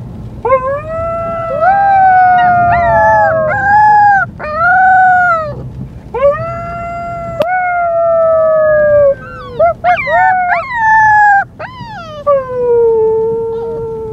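White Siberian husky puppy howling: a string of long, high howls with a few short yelps between them. The last howl slides slowly down in pitch.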